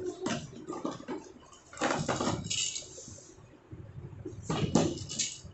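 Small hard toys clinking and rattling as they are handled, in three short spells of clatter.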